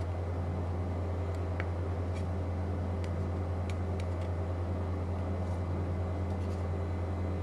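Steady low hum, as of a fan or running machine, with a few faint light clicks as a clear plastic flap is handled and turned over.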